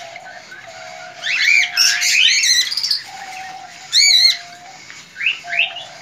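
Cockatiels chirping and calling: a burst of rapid chirps about a second in, one loud wavering call about four seconds in, and more chirps near the end.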